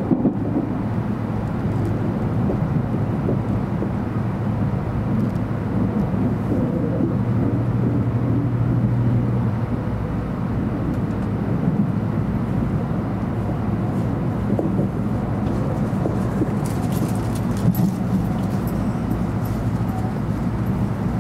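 Cabin noise inside a moving 700 Series Shinkansen car: a steady low rumble of the wheels on the rails and the running gear. A low hum swells for a couple of seconds about a third of the way in, and a few faint clicks come near the end.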